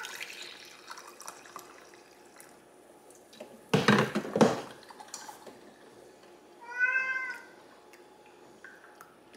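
A cat meows once, a short call that rises and falls, about seven seconds in. Coffee pours into a ceramic mug at the very start. About four seconds in come two loud knocks of things handled on the counter, the loudest sound here.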